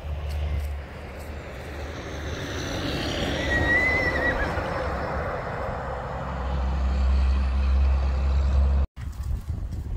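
Semi truck driving past on the road, its engine and tyre noise swelling and then fading, with a brief high squeal about three and a half seconds in. A low rumble builds near the end and cuts off suddenly.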